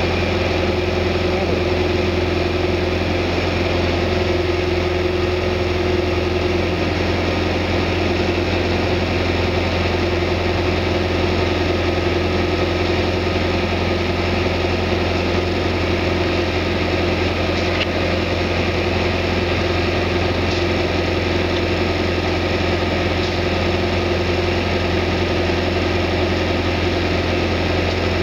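Backhoe engine running steadily at constant speed: an unbroken low hum with a steady tone above it.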